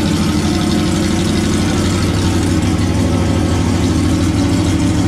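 Aprilia V4 1100 Factory motorcycle's V4 engine idling steadily and loud. It breathes through the stock exhaust with its rear section removed and a cheap universal exhaust tip clamped on.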